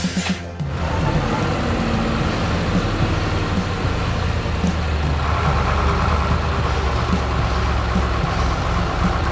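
Heavy construction vehicle's diesel engine running at a steady idle, low and rumbling. A higher hum joins about five seconds in.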